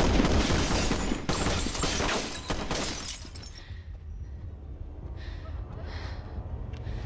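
A rapid burst of rifle gunfire with glass shattering for about three seconds, then it stops, leaving a low steady rumble.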